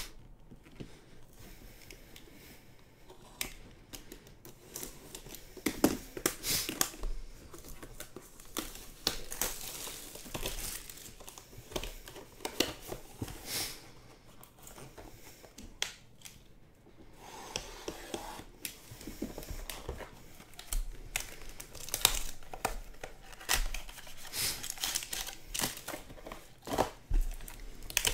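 Topps Museum Collection baseball card packs rustling and crinkling in the hands, with irregular crackles and tearing as a pack wrapper is ripped open.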